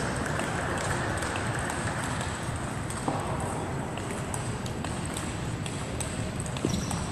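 Table tennis balls clicking off bats and tables at scattered moments, over the steady background hum of a large sports hall.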